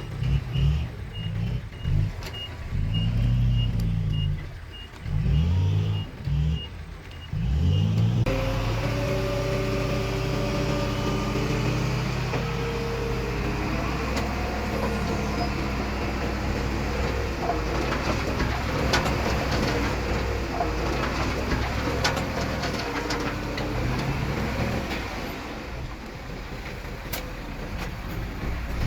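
Diesel earthmoving machinery at work. For the first eight seconds an engine revs up and down while a backup alarm beeps steadily. Then the sound changes suddenly to a steady engine working under load, its pitch rising, with rattling and clanking over it.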